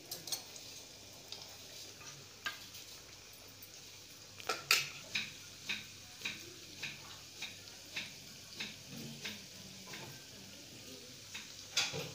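Litti dough balls deep-frying in hot oil in an iron kadai: a steady sizzle. Through the middle it is cut by a run of sharp ticks, roughly two a second.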